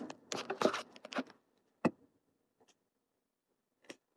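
Quiet small room: a woman's soft voice trails off in the first second, then a sharp click about two seconds in and a fainter one near the end.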